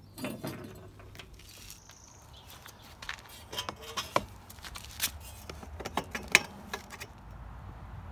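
Light clicks and metallic knocks of rusty motorcycle exhaust parts being handled, with a run of sharp ticks between about three and seven seconds in.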